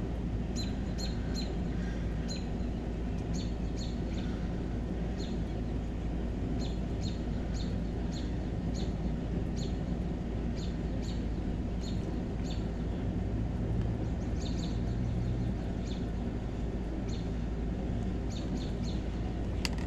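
Songbirds chirping repeatedly, many short high calls every half second or so, over a steady low background rumble.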